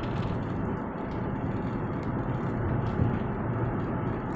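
Steady road and engine noise inside a car's cabin while it drives along a highway, mostly a low rumble of tyres on the road.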